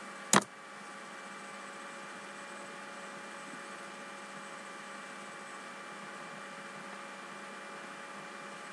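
Steady electrical hum and hiss from the recording setup, several faint constant tones over an even hiss, with one sharp click about half a second in.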